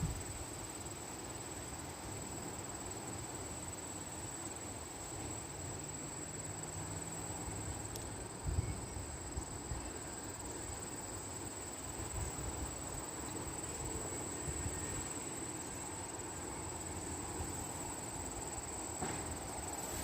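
Wind buffeting the microphone outdoors in irregular low gusts, over a thin steady high-pitched tone, with a brief knock about eight seconds in.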